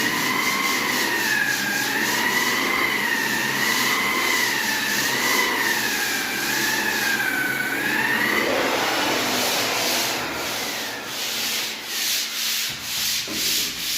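Electric wall sander grinding across a wall surface, its motor whine wavering in pitch as it is worked. The whine fades after about eight seconds, and the sanding then goes in even pulses a little more than one a second.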